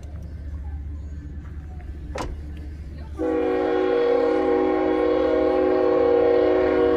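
A Metrolink train's air horn sounds one long chord of several steady notes. It starts abruptly about three seconds in and is held for about four seconds, over the low rumble of the train.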